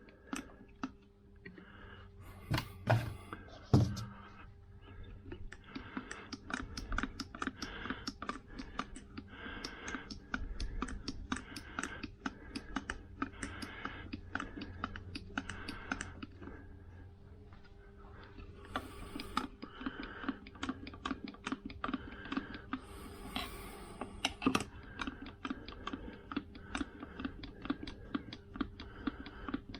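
Hand-pumped oil can clicking quickly and repeatedly in runs with short pauses as SAE 30 gearbox oil is pumped into a Vespa PX engine, with two louder knocks about three and four seconds in.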